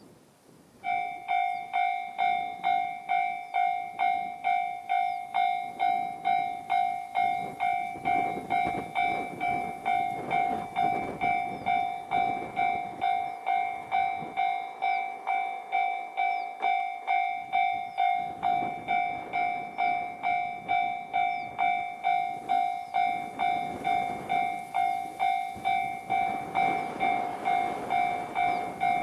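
Japanese railway level-crossing warning bell ringing in a steady, even 'kan-kan' rhythm of about two strokes a second, starting about a second in as the crossing activates for an approaching train. Behind it, a low rushing noise swells and fades a few times.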